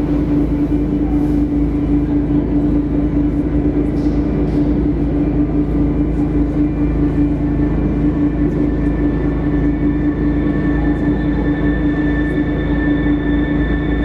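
Loud sustained electronic drone from an immersive light-and-sound show's sound system: a steady rumble with one strong held low tone. Fainter high tones join about ten seconds in.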